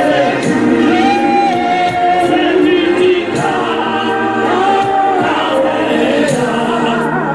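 A church congregation singing a gospel song together in chorus, voices holding long notes.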